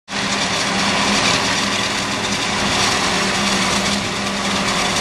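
Forage harvester chopping corn for silage: engine running steadily, with a constant hum under an even rushing noise.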